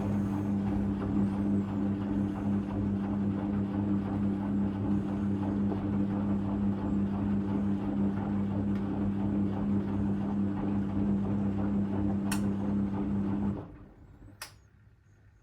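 Hoover Electra 535 Dual Spin washing machine running with a steady motor hum that cuts off suddenly near the end, marking the end of the wash as the machine moves on toward drain. There is a sharp click just before it stops and another just after.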